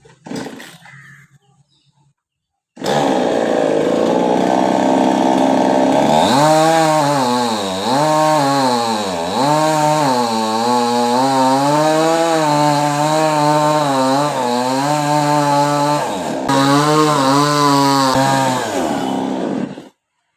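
Chainsaw starts up about three seconds in and runs loud; its engine pitch drops and recovers again and again as the chain bites into the coconut tree. It dips briefly near the end, resumes, then stops just before the end.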